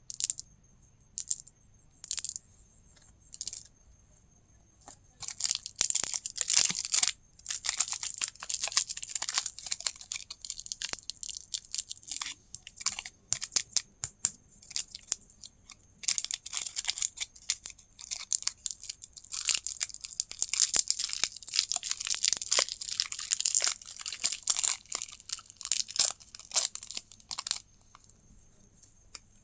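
Plastic candy wrapping being crinkled and torn open: a few separate crackles at first, then long runs of dense crinkling with a short lull around the middle.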